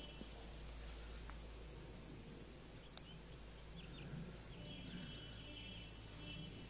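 Faint outdoor ambience: small birds chirping now and then, with a high trilling song about two-thirds of the way in, over a steady low background rumble.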